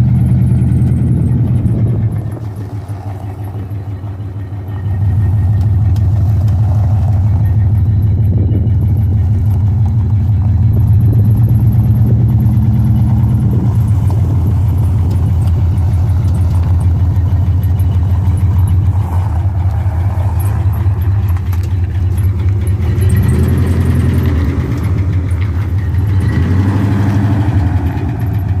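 1974 Ford F250 pickup's engine running steadily with a low note. About two seconds in it drops quieter for around three seconds, then picks up again.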